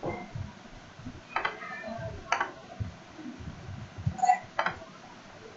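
Computer mouse clicking a few times, single sharp clicks spread a second or so apart.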